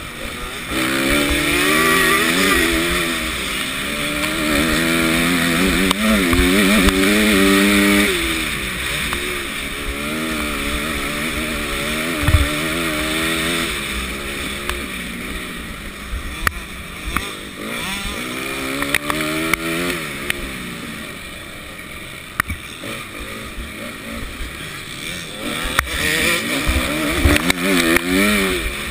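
Motocross bike engine at close range, revving up hard and dropping back again and again as it goes through the gears, with several sharp thuds along the way.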